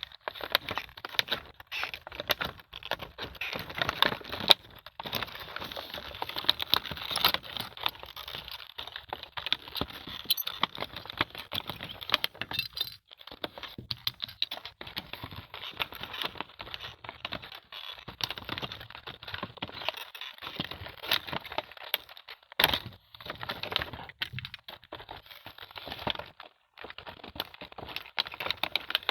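Small plastic toy doctor-set pieces being handled: rapid, irregular clicking and rattling with light rustling, pausing briefly a few times.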